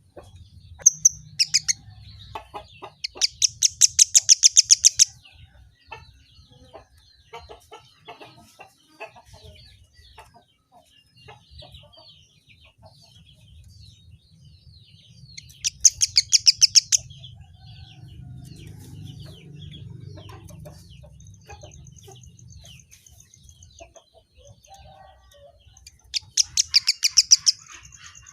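Kemade bird singing: three loud bursts of fast, rapidly repeated high notes, one near the start, one around the middle and one near the end. Softer scattered chirps come between the bursts, with a thin steady high buzz about two-thirds of the way through.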